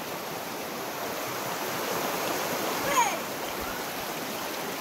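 Shallow freshwater stream running over rocks and stones, a steady rush of water. About three seconds in, a short falling cry rises briefly above it.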